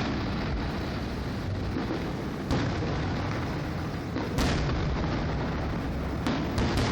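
Aerial fireworks bursting: sharp bangs about two and a half and four and a half seconds in, then two close together near the end, over a continuous low rumble of booms.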